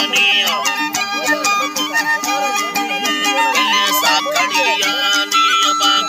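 Folk music: a wooden flute plays a stepping melody over the fast, steady strumming of a plucked lute, with a man singing along.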